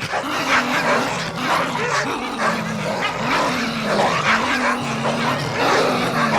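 Several dogs barking and snarling at once, a dense overlapping mix of short barks over a continuous low growl.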